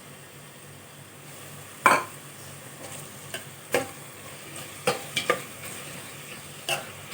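Sliced onions frying in ghee in a pressure cooker with a steady sizzle, while a spatula stirs and knocks against the pot about five times.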